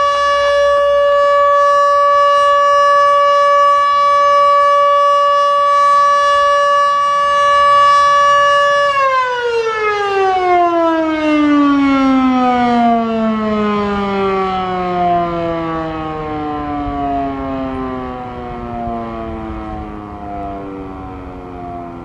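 Electromechanical outdoor warning siren, which the uploader takes for a Federal Signal Model 2, sounding a steady alert tone. About nine seconds in it shuts off and winds down in a long, smoothly falling pitch, slowly getting quieter as the rotor coasts to a stop.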